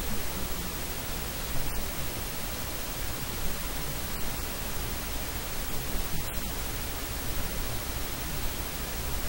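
Steady hiss of static noise with no voice to be heard.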